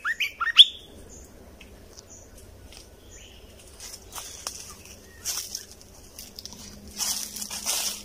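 Red-whiskered bulbul calling: a quick run of bright chirping notes in the first second, then scattered short calls. Brief rustling, fluttering bursts come about four seconds in and again near the end.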